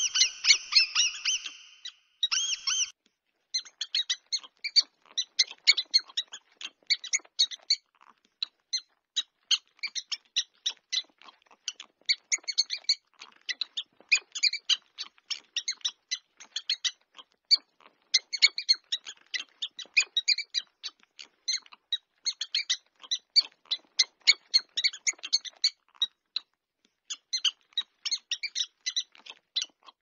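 Mouse squeaks: rapid high-pitched chirping squeaks in quick chattering runs with short pauses. Longer drawn-out squeals come in the first couple of seconds.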